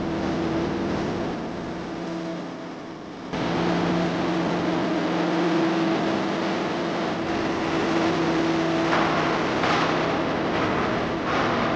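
CO2 MIG welding arc crackling steadily over a hum from the welding machine. The sound drops back a little, then picks up again abruptly about three seconds in.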